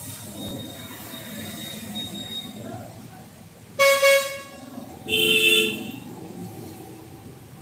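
Two short honks of a vehicle horn about a second apart, the second a little lower and longer.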